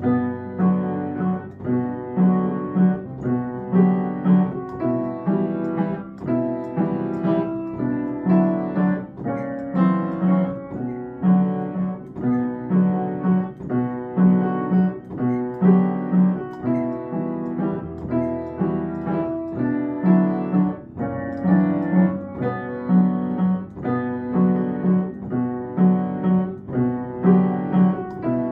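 Piano playing a song accompaniment: chords and a repeating low part struck in a steady, even beat.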